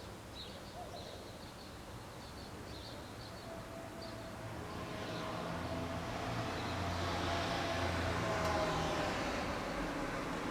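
A motor vehicle approaching, its engine hum and road noise growing steadily louder over several seconds, with a steady whine over it. Small bird chirps are heard faintly in the first few seconds.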